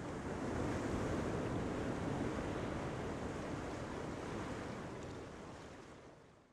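Sea sound effect: a steady rush of ocean waves with some wind, fading away over the last second or so.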